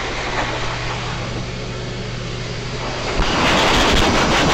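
Steady machine hum with rushing noise. About three seconds in, a louder rush of air takes over, with a few low thumps: a pet grooming dryer blowing through its hose.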